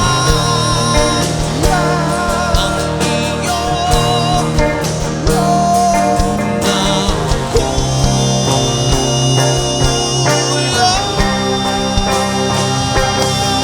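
Live rock band playing, taken straight off the mixing desk: long wavering lead notes over bass and drums.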